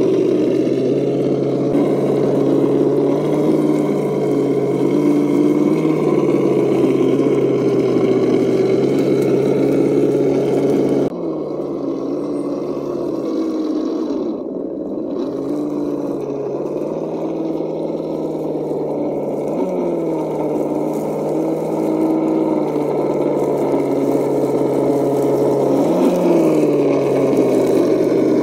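Axial RC scale crawler's electric motor and gear train whining as it drives, a steady drone whose pitch shifts with the throttle. It drops in level abruptly about eleven seconds in, and twice in the second half it briefly rises and falls in pitch.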